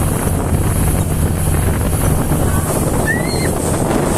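Motorboat's engine running at a steady drone, with water rushing past the hull and wind buffeting the microphone.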